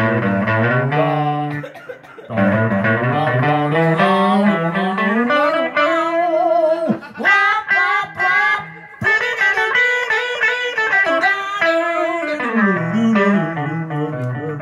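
Amplified electric guitar played without drums, a loose improvised riff whose notes slide up and down in pitch, with short breaks about two seconds in and again around the middle.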